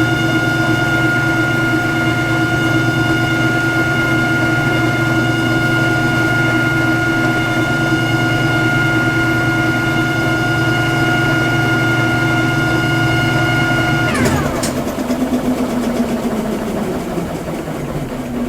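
Whirlpool direct-drive top-load washer running with a constant high-pitched whine over a low motor hum, the sign of a failing basket drive and tub support bearing. About fourteen seconds in, the whine drops sharply in pitch and cuts out, leaving a fading rumble as the machine winds down.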